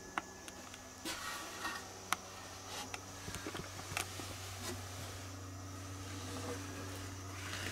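A few light clicks and brief rubbing as a hand feels along the plastic shower pan and wall seams, over a steady low hum.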